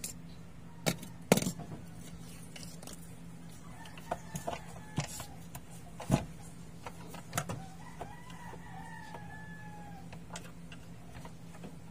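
Sharp plastic clicks and knocks from handling a portable radio's battery compartment, the loudest about a second in and again about six seconds in. A chicken calls in the background about eight seconds in, over a steady low hum.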